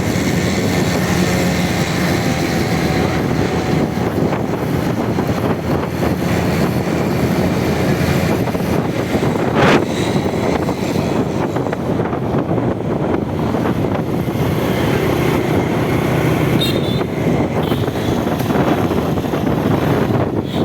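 Small brush-cutter engine mounted on a bicycle, running steadily under way with a dense mechanical rattle. One sharp knock about halfway through.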